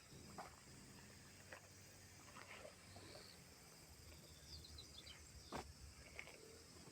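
Near silence: room tone with a few faint scattered clicks and light knocks, and a few faint high chirps a little past the middle.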